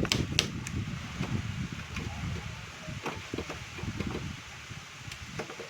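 Manual Godrej typewriter being typed on: three sharp typebar strikes in the first second, then a few fainter clicks over low rattling and handling noise from the machine.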